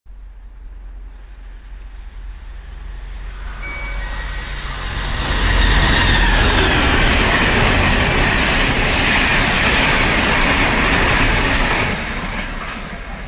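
Irish Rail 201 Class diesel locomotive and its passenger coaches passing at speed. The rush of engine and wheel noise builds over about five seconds and is loudest as the train goes by, with a high whine falling in pitch, then drops away sharply near the end.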